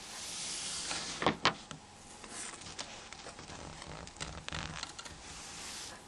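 Light clicks and scrapes of a small tool working on a Nokia N95 phone's internal parts over a steady hiss, with two sharper clicks close together about a second and a half in.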